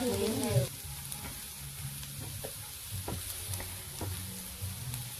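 Chopped banana stem frying in a wok, sizzling steadily while a metal spatula stirs it, with a few taps and scrapes of the spatula against the pan.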